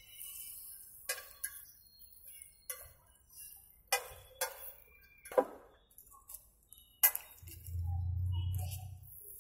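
A metal knife clinking and tapping against a flat steel griddle: single sharp clinks, irregular, roughly a second apart. Near the end a low hum comes in for about a second and a half.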